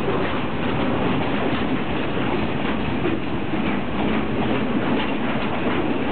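Freight wagons loaded with shipping containers rolling past at close range: a steady rumble of steel wheels on rail, with wheel clicks over the rail joints.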